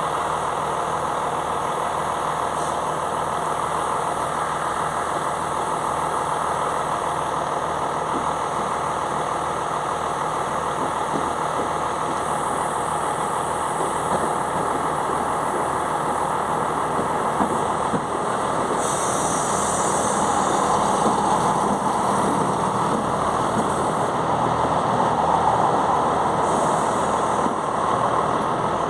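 Class 168 diesel multiple unit's engines running steadily, growing a little louder about two-thirds of the way through, with a brief hiss at that point.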